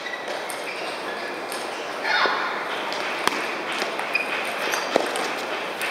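Table tennis ball clicking sharply off paddle and table during a point, a few separate hits in the second half, over the steady murmur of a large hall where other tables' balls click and people talk.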